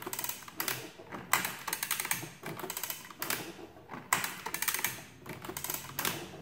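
Antique Burroughs adding machine mechanism worked by hand, its sliders, racks and levers clattering in a series of bursts of rapid metallic clicking, roughly one burst a second.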